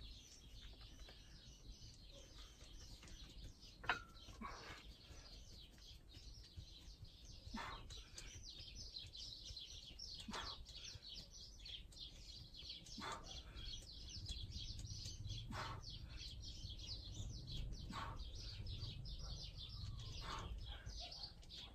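Many small birds chirping continuously, with a sharp click about four seconds in and faint knocks roughly every two and a half seconds.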